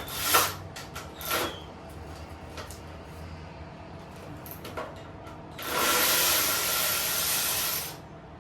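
Two short clanks of hand tools, then a handheld power tool runs steadily for about two and a half seconds before stopping near the end.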